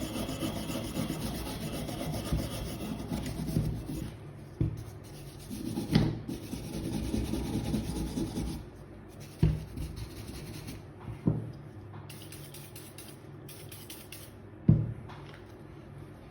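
Stiff hand brush scrubbing rust off a WD-40-soaked metal hand tool in quick rasping strokes, which stop about eight seconds in. A few short, sharp knocks follow, spaced a couple of seconds apart.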